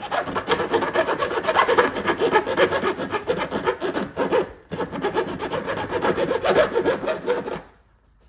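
Sandpaper rubbed rapidly back and forth over a plastic-welded car fender repair, smoothing it down before putty and paint. It pauses briefly about halfway and stops shortly before the end.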